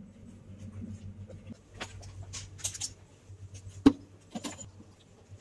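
Light clicks and rattles as a wire rack and tray are handled in a stainless steel cabinet, with one sharp, louder knock a little before four seconds in, over a steady low hum.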